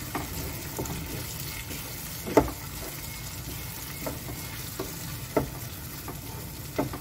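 Chilli sambal with squid frying in a pan, a steady sizzle, while a wooden spatula stirs and scrapes through it. A few sharp knocks break in, the loudest about two and a half seconds in.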